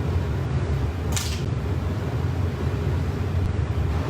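Steady low rumble of running commercial kitchen equipment, with a short hissy scrape about a second in.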